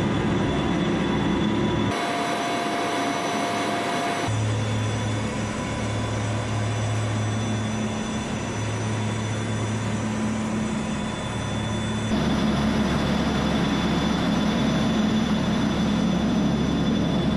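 Iskander-M launcher vehicle's machinery running with a steady hum and a high whine as the missile is raised toward launch position. The sound changes abruptly about two, four and twelve seconds in.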